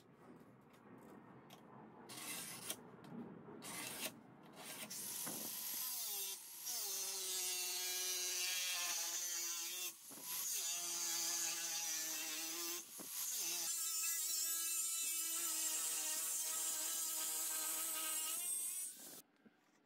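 Angle grinder with a thin cut-off disc cutting through sheet steel. It is a loud, steady motor whine over a hiss of grinding; the pitch drops as the disc bites about six seconds in. The sound breaks off briefly twice and stops abruptly near the end. The first few seconds hold only fainter scratching and clicks.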